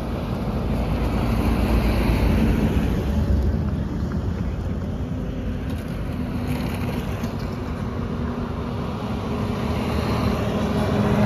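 Steady low rumble of a road vehicle, with no sharp events.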